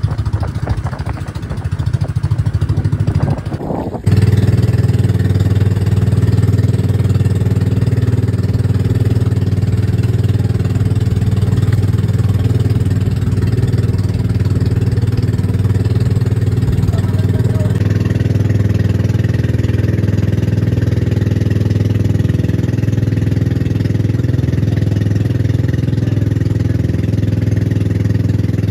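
Outrigger boat's engine running steadily, a loud, even drone with a clear low pitch. The first few seconds are rougher and noisier, changing abruptly to the clean drone about four seconds in.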